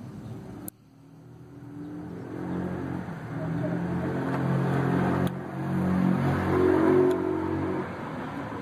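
A motor vehicle's engine running nearby, a steady hum that starts about a second in, builds over several seconds and eases off near the end. A couple of faint clicks sound over it.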